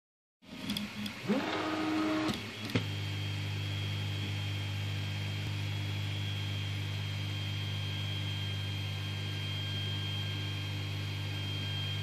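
Anet A8 3D printer's stepper motors whining with a rising pitch for about two seconds as the head moves, with a few clicks. After that comes a steady low motor hum with a faint high whine over it.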